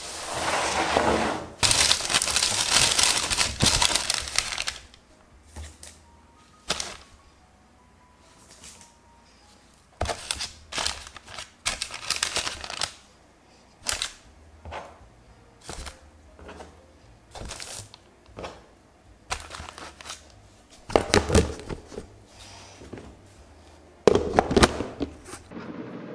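Cloth kitchen towel rustling as it is drawn over the dough buns. Then a string of light taps and clicks as buns are set into a plastic steamer basket lined with perforated parchment, with louder knocks of the plastic steamer parts near the end.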